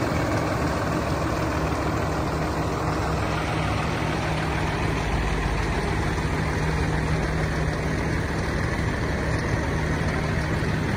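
Diesel engine of a 2011 Peterbilt 348 garbage truck idling steadily.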